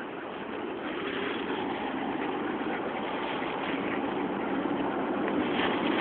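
Steady road traffic noise from passing vehicles, slowly growing louder.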